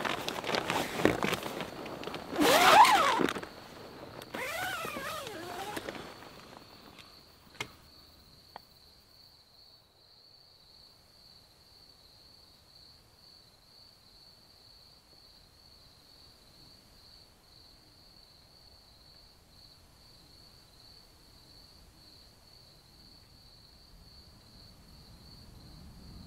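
Tent fabric and gear rustling as someone moves about inside a tent for the first few seconds, then two light clicks. After that the night is quiet but for an insect trilling steadily at a high pitch.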